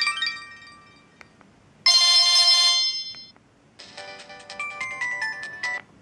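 Samsung E1150 flip phone playing preset polyphonic ringtone previews from its loudspeaker as the list is scrolled. A melody fades out at the start, followed by two faint clicks and a short held chord about two seconds in. Another tune of stepping notes plays and stops just before the end.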